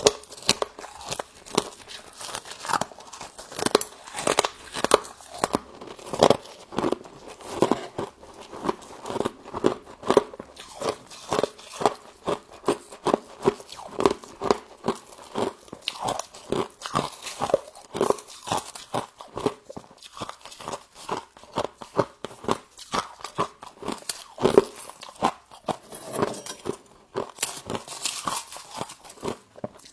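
Close-up crunching and chewing of humidifier frost: rapid, irregular crisp bites and crunches, several a second, throughout.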